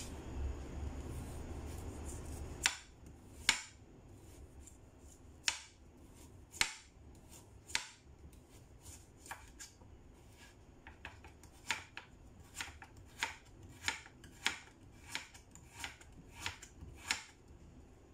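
Kitchen knife slicing a carrot on a cutting board: sharp knocks of the blade striking the board, a few spaced out at first, then a steadier run of about one or two a second in the second half. A low rumble fills the first few seconds and stops abruptly.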